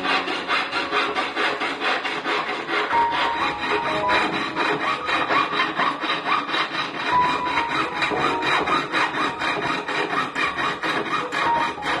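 Jeweler's piercing saw cutting a silver strip on a wooden bench pin: the fine blade rasps back and forth in quick, even strokes, several a second.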